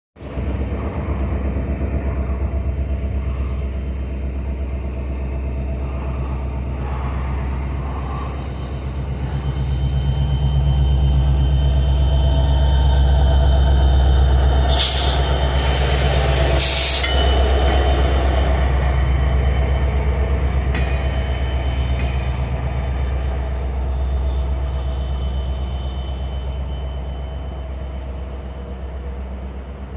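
EMD 710 two-stroke diesel prime mover of a Norfolk Southern locomotive working under load with a heavy, deep hum while shoving a train. The hum swells midway, where two brief loud bursts of hiss-like noise cut across it, then eases slightly toward the end.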